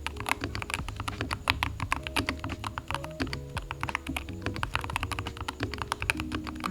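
Typing on a Keychron K2 HE Hall-effect keyboard: a fast, uneven run of key clacks, several a second.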